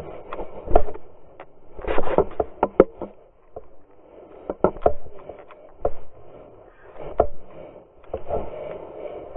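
Muffled knocks and thumps of close handling and bumping, coming in irregular clusters of several strikes, over a faint background murmur.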